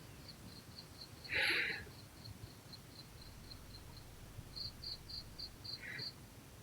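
High, rapid insect-like chirping, about four short pulses a second, growing louder for a while near the end. About a second and a half in comes a short loud hiss, the loudest sound, with a fainter one near the end.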